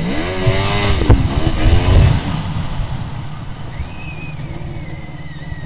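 Racing snowmobile engine revving hard with its pitch rising and falling, then easing off about two seconds in to lower, steadier revs as the sled slows. A faint high whine glides slowly downward in the second half.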